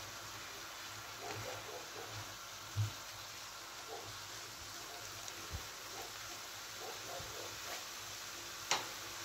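Chopped onion and grated carrot frying gently in oil in a nonstick pan, a steady faint sizzle, while a silicone spatula stirs them. A few knocks of the spatula against the pan, the loudest near the end.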